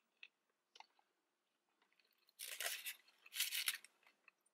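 Two short, quiet, crackly rustles from a breakfast sandwich being handled and eaten out of its paper wrapper, after a few faint ticks.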